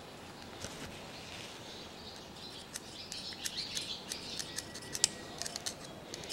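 Faint small clicks and scraping of a brass pin being handled and worked into the aluminium water-choke housing of a Zenith Stromberg carburettor. The ticks come thicker from about halfway through.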